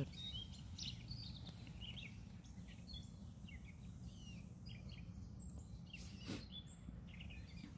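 Birds chirping and calling in short, scattered notes over a steady low background rumble, with a single brief knock or rustle about six seconds in.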